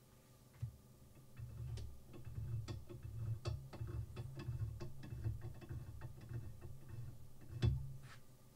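The angle-adjustment knob on a KosiM Pro knife sharpener being turned by hand, raising the guide rod's pivot to a steeper sharpening angle: a string of light, irregular mechanical clicks and ticks over a low handling rumble, with one louder knock near the end.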